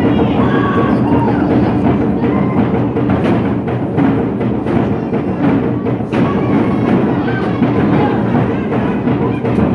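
Tongan ma'ulu'ulu music: a seated group singing together over steady drum beating.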